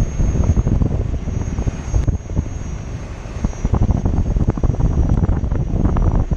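Wind buffeting the microphone on a moving Gotway electric unicycle, mixed with rumble from its tyre rolling over asphalt, swelling and easing in gusts.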